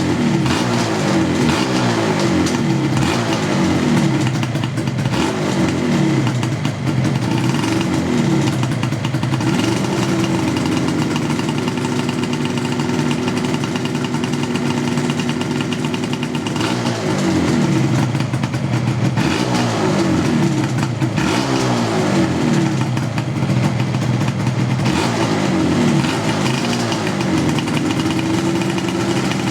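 Yamaha RZ250's two-stroke parallel-twin engine, warmed up, revved and let back down again and again, with steadier stretches held in the middle and near the end.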